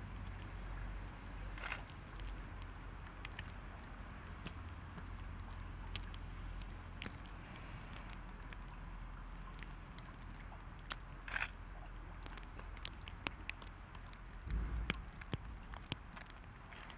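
Falling wet snow making many faint scattered ticks and crackles over a steady low hum, with a few louder clicks and one low thump near the end.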